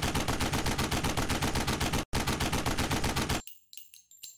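Rapid automatic gunfire, a machine-gun burst sound effect of about a dozen shots a second, with a brief break about two seconds in and stopping about three and a half seconds in, leaving a few faint clicks.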